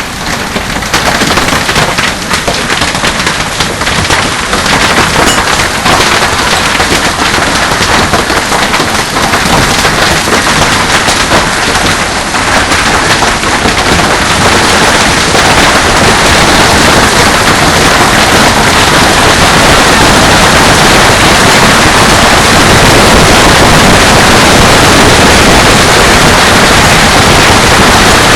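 Heavy hail pelting down: a dense, very loud clatter of hailstones striking hard surfaces, growing heavier and more continuous over the first fifteen seconds or so.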